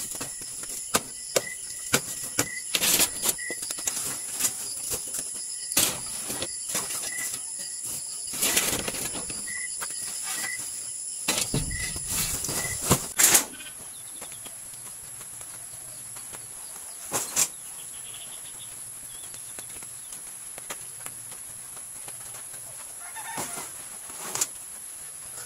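Pieces of dried copra knocking and rattling as they are packed into a woven plastic sack and pressed down with a wooden stick: a quick, irregular run of sharp knocks and rustles that stops about 13 seconds in. After that there is a quieter background with a few scattered thumps and rustles.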